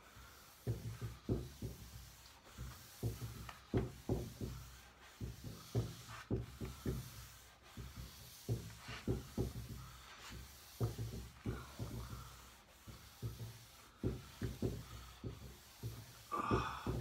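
Fine grade 0000 steel wool loaded with wax rubbed back and forth over a pine tabletop, a scratchy scrubbing in short strokes about two a second, pausing now and then.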